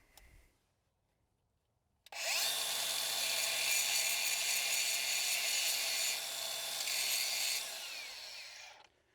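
A handheld electric power tool starts abruptly about two seconds in, runs steadily with a whine and a low hum for about six seconds, then winds down and stops near the end.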